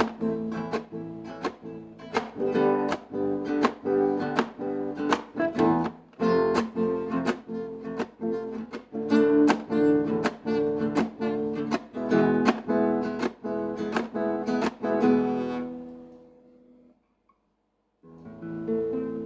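Guitar strumming chords in a steady rhythm, about two to three strokes a second, as the wordless close of a song. The strumming fades out about sixteen seconds in, a second of silence follows, and a final chord rings out and dies away near the end.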